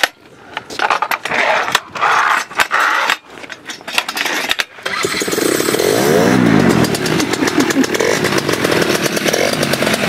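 Clicks and knocks from handling the wheeled water skis, then about five seconds in a paramotor engine starts up and runs, its pitch rising and falling as it revs.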